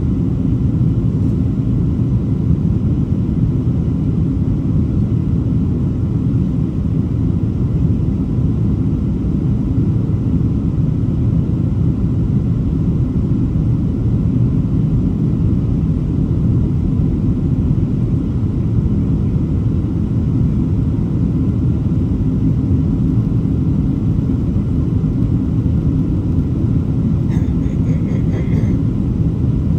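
Steady low rumble of an airliner's engines and airflow, heard from inside the passenger cabin.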